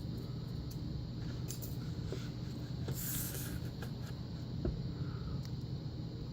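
Faint scraping and light ticks of a thin metal shim being worked into an American padlock's cylinder, with a brief louder scrape about three seconds in, over a steady low hum.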